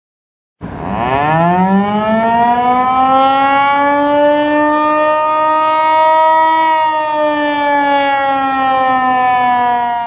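Warning siren winding up, its pitch rising sharply over the first couple of seconds to a steady wail, then sagging slightly and beginning to die away at the end.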